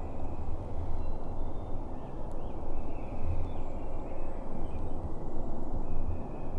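Uneven low rumble of wind on the microphone, with a few faint, high, thin songbird calls over it.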